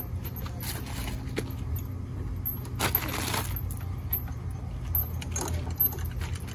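Swing-set chains clinking and rattling as a child hangs and sways on a trapeze bar, with a scuff on gravel about three seconds in, over a steady low rumble.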